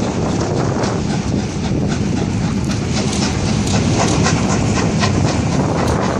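Coaches of a steam-hauled passenger train behind GWR Castle-class 4-6-0 No. 5029 Nunney Castle rolling steadily past, the wheels clicking over the rail joints.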